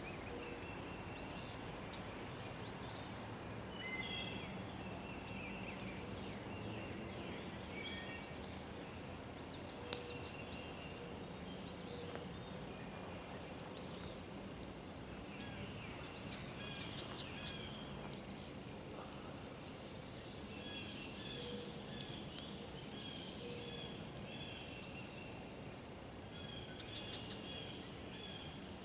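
Several songbirds chirping and whistling over a steady outdoor background hiss, with one sharp click about ten seconds in.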